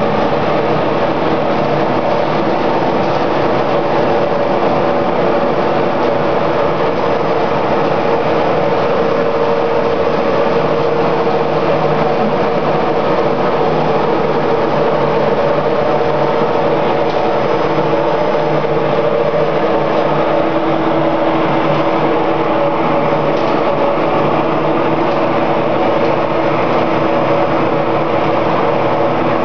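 WEKTOR BT-60 sawdust briquetting press running steadily while extruding a briquette log: a loud, constant mechanical din with several steady hum tones.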